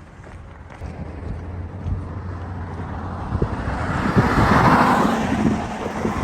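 A car driving past close by, its tyre and engine noise swelling steadily to its loudest about four to five seconds in.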